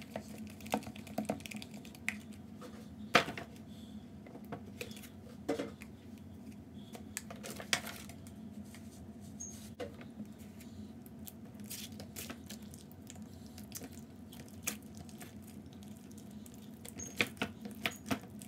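Sticky blue glue slime being kneaded and stretched by hand on a plastic sheet as activator is worked in: scattered wet clicks and squelches, one louder snap about three seconds in, over a low steady hum.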